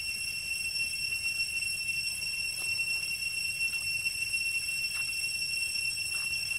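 A steady, high-pitched insect drone, typical of cicadas in the forest canopy, holding one unchanging tone. A few faint clicks sound over it.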